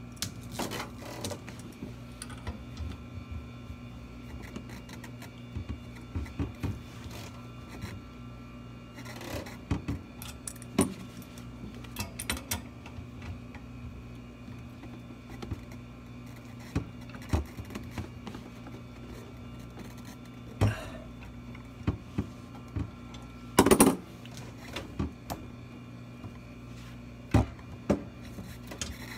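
Irregular metal clicks, taps and scrapes of an adjustable wrench working on the flare-nut fitting of a filter drier and of copper refrigerant tubing being handled, over a steady low hum. A short, loud clatter comes about three quarters of the way through.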